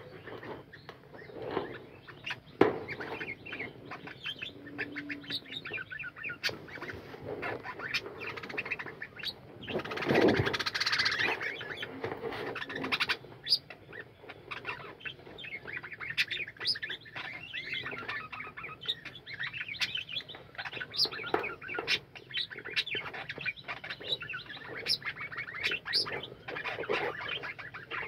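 A flock of budgerigars chattering and warbling together: a continuous tangle of many quick chirps and squawks, with a louder rustling burst about ten seconds in.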